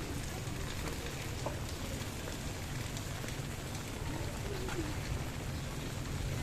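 Steady rain falling and pattering on surfaces, with scattered drops ticking and a steady low rumble underneath.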